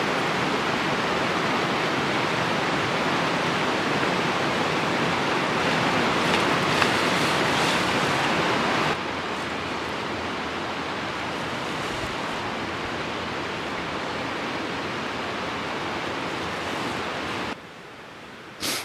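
Steady, even rushing noise outdoors, with no voices. It drops abruptly in level about halfway through and again near the end, where one brief click sounds.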